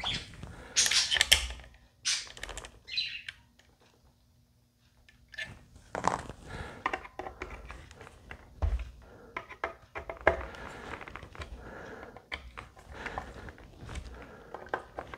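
Irregular clicks, scrapes and knocks of hands and tools working at an electric guitar's neck and headstock. Busiest in the first few seconds and again from about six seconds on, with a short quiet pause between.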